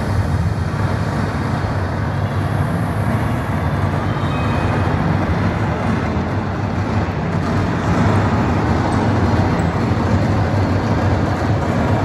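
Steady low rumbling ambience of a crowded exhibition hall, with faint voices of visitors underneath.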